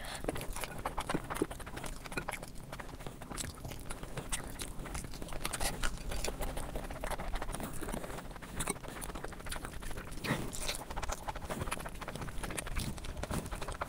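Close-miked ASMR eating sounds: irregular chewing and biting with many small mouth clicks.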